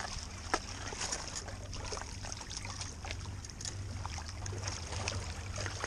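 Seawater sloshing and splashing against jetty rocks as a big hooked Atlantic bonito thrashes at the surface and is grabbed by hand, with a sharp splash about half a second in over a low steady rumble.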